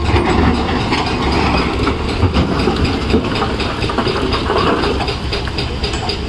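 Excavator-mounted hydraulic rock breaker hammering on boulders in rapid, even blows, over the steady running of diesel machinery.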